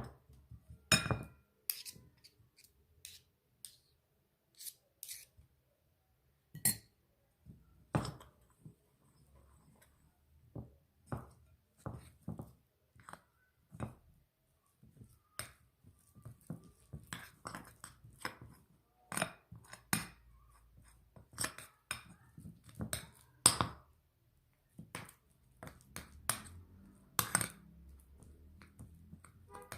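Hand-stirring a thick paste of beldi soap, paprika and 'akar fassi in a small bowl: a utensil clinks and taps irregularly against the bowl.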